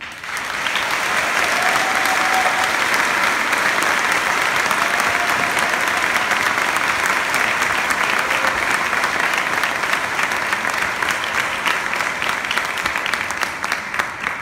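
Large audience applauding. The clapping swells within about a second and keeps up steadily, then thins out near the end.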